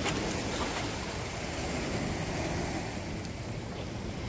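Steady rush of wind and surf, with wind buffeting the microphone.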